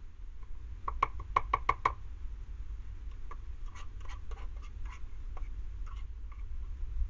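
A utensil tapping and scraping cat food out of a plastic pet bowl: a quick run of about seven sharp taps, then irregular scraping and clicking as the food is pushed out.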